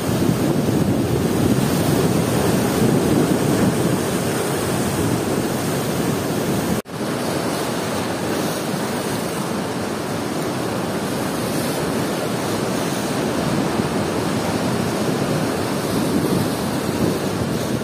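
Rough sea surf breaking and washing up over a flat stone shore, a continuous rushing wash, with wind buffeting the microphone. The sound breaks off for an instant about seven seconds in.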